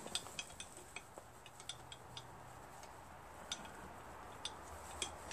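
Faint, irregular light metallic clicks from a steel bolt and washer knocking in the bolt hole of an aluminium air-compressor cylinder head as the bolt is wiggled to check the new head gasket.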